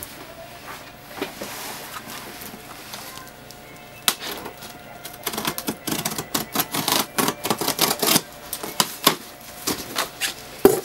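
Scissors cutting through packing tape on a cardboard box: a fast, irregular run of sharp snips and scrapes that starts about four seconds in. Near the end a loud cardboard knock as the box flaps are pulled open.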